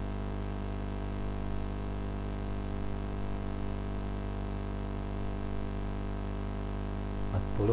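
Steady electrical mains hum with a stack of evenly spaced overtones.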